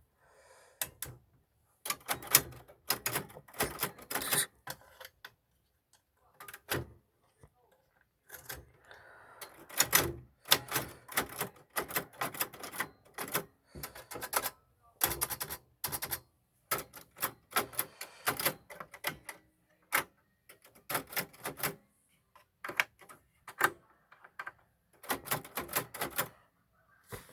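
Keys of an old thrift-store Royal typewriter being pressed, typebars clacking in quick bursts of several strikes with pauses between.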